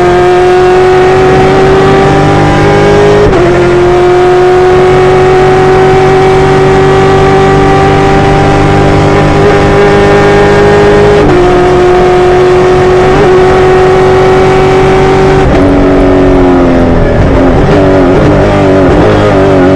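Naturally aspirated V8 engine running hard at high revs, its note holding high and slowly climbing. The pitch jumps abruptly a few times, then falls over the last few seconds as the engine comes off the throttle.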